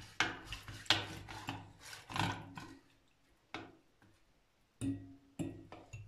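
Metal wire whisk beating a thin liquid batter of oil, milk, yogurt, water, egg whites and yeast in a glass bowl: quick scraping, clinking strokes against the glass for about three seconds, then a few single clinks.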